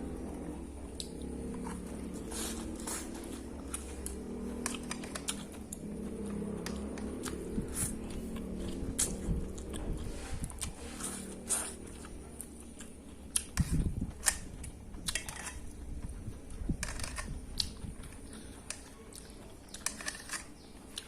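A person eating fried instant noodles close to the microphone: chewing with many short clicks and smacks scattered throughout. A steady low hum in the background drops away about two-thirds of the way in.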